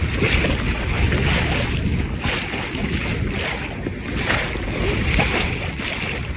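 Wind buffeting the microphone over water rushing and splashing along the hull of a small Pacer sailing dinghy under way. The low rumble is steady, and the water noise swells and ebbs every second or so.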